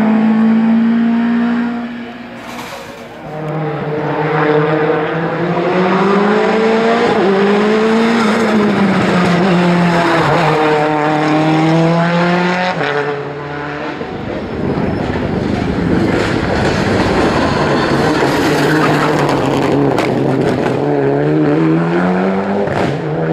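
Hill-climb racing car engine at full throttle, its pitch climbing and then dropping sharply at each upshift, several times over.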